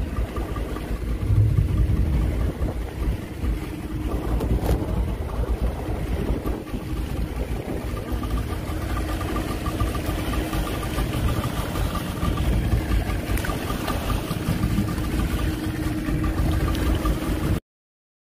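A small fishing boat's engine running steadily while the boat moves through the sea, with water rushing along the hull. The sound cuts off suddenly near the end.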